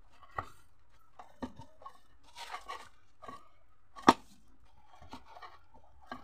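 Hands kneading sesame-flecked pitha dough in a plastic bowl: the dough squishes and rubs under pressing fists, with several sharp knocks against the bowl, the loudest about four seconds in.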